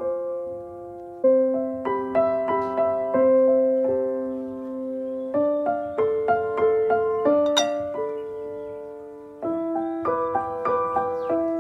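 Background piano music: a calm melody of struck notes and chords that ring and fade.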